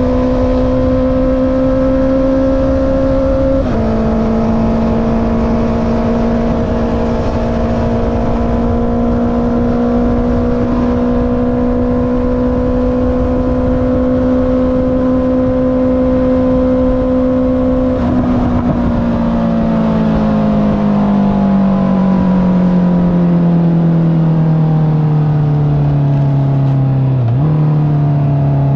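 Honda CB650R inline-four with an Akrapovic exhaust, being ridden: the engine note climbs slightly, drops with an upshift a few seconds in, holds steady at cruise, then falls steadily for the last ten seconds as the bike slows on engine braking, with a quick downshift near the end. Steady wind rush runs underneath.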